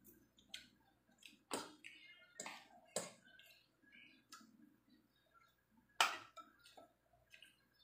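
Spoon and fork clicking and clinking against a plate and bowl while eating, a scattering of short sharp clicks; the loudest comes about six seconds in.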